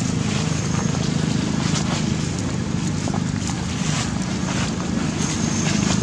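Steady low rumble of wind buffeting the microphone, with scattered crackles of dry leaves underfoot.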